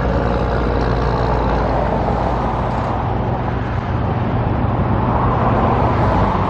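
Steady road traffic, with the low hum of a nearby engine running throughout.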